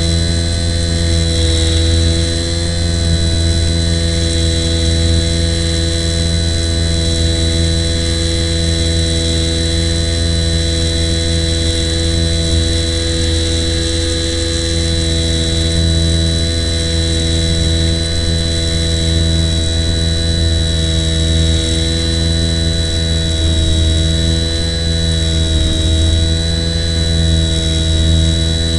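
RC plane's motor and propeller running at a steady throttle: a continuous droning hum with a high whine on top, its pitch wavering slightly now and then.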